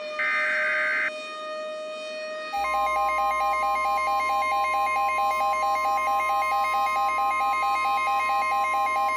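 Emergency Alert System data burst ending about a second in, then, from about two and a half seconds, a loud steady alert tone with a rapidly pulsing tone layered over it. This is the weather-radio attention signal that comes before a tornado warning.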